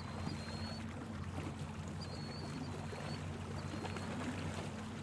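Steady low background ambience: a constant low hum with a soft hiss spread over it and a few faint, short high tones.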